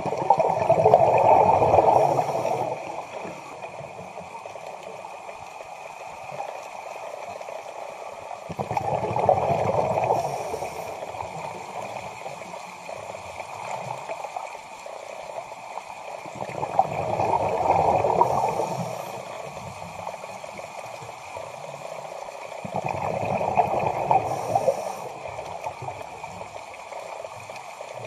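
Bursts of bubbling from a scuba diver's regulator exhaust, four breaths about seven to eight seconds apart, each lasting two to three seconds, over a steady underwater hiss, heard through the underwater camera.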